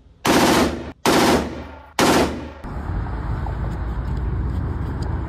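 Rifle fire in an indoor shooting range: three loud blasts about three-quarters of a second apart, each ringing off the walls. After a cut, the low steady hum of a car's cabin.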